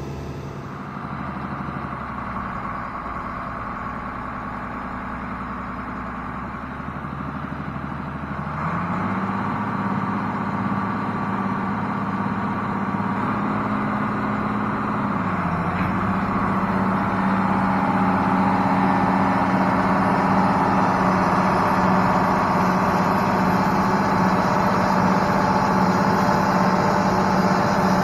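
International Harvester 1486 tractor's six-cylinder turbo diesel engine working as the tractor tries to drive out of mud. The engine speeds up about eight seconds in and again around fifteen seconds, getting louder, then holds steady at the higher revs.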